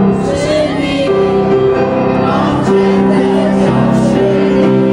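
Background music with steady, sustained held notes.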